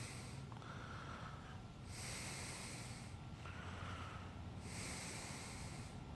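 Faint breathing close to the microphone: a hissing breath about every two and a half seconds, over a low steady hum.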